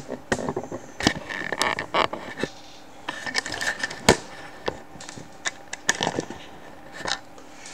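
Handling noise from a camera being moved and repositioned: an irregular string of clicks and knocks mixed with short scraping rubs close to the microphone, the sharpest knock about four seconds in.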